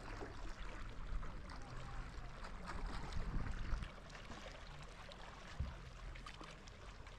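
Faint water trickling and lapping around a kayak, with small scattered splashes. A low rumble underneath drops away about four seconds in.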